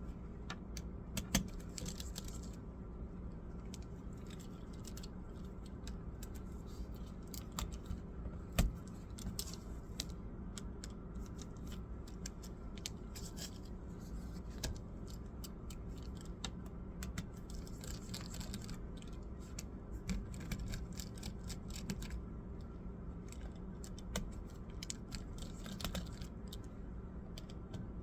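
Scattered small clicks and taps of hand tools and small parts being handled during laptop disassembly, a few of them sharper and louder, over a steady low hum.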